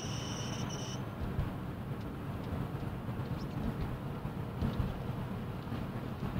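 A steady high-pitched squeal from a 2007 Ford Focus II's climate-control system, the faulty noise it makes, cuts off suddenly about a second in. A low rumble from the car runs underneath.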